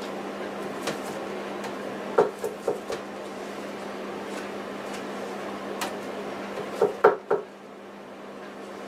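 Painting tools clinking and knocking, as a brush is worked at the palette and paint pots: a quick run of about four knocks around two seconds in and another cluster around seven seconds, over a steady low hum.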